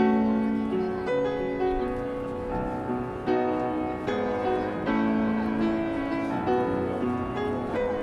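Acoustic upright piano playing a slow ballad: a melody over sustained chords, with new notes struck about once a second.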